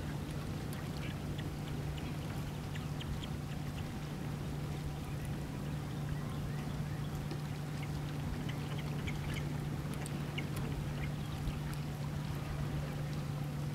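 Osprey chicks chirping in short, faint, high calls scattered throughout, over a steady low hum.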